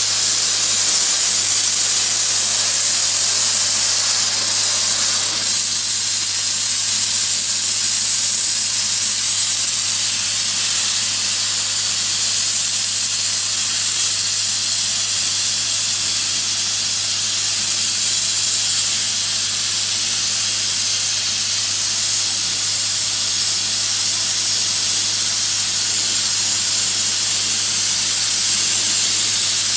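Compressed-air bead blaster hissing steadily as its nozzle blasts calcium and dirt buildup off pool tile, over a steady low hum.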